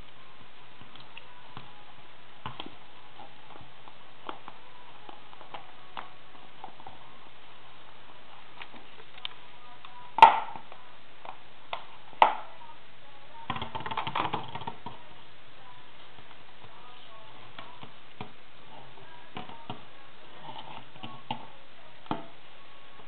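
Soda bottle being knocked about by a cat: scattered light taps and knocks, two sharp louder knocks about ten and twelve seconds in, then a short clatter.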